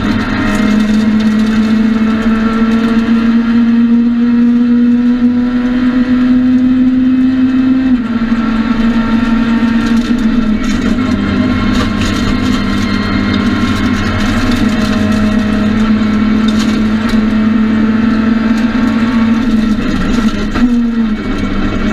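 Inside the cabin, a Citroën C2 R2 Max rally car's four-cylinder engine pulls hard at high revs, its pitch climbing slowly and then dropping with an upshift from fourth to fifth about eight seconds in. It then holds steady and falls away near the end as the driver lifts off.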